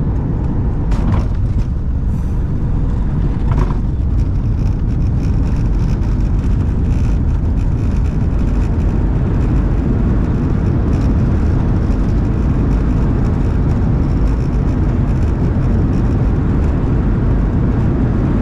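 Steady low rumble of a Boeing 737 MAX 8-200's CFM LEAP-1B engines and airflow, heard inside the cabin over the wing, with a couple of faint clicks in the first few seconds.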